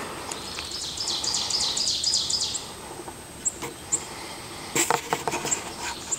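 A small bird's fast, high trill of about eight notes a second, lasting nearly two seconds. Around five seconds in comes a cluster of sharp clicks and knocks.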